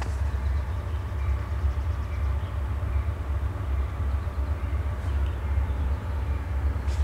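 Diesel locomotives of an approaching CSX freight train, a steady low rumble.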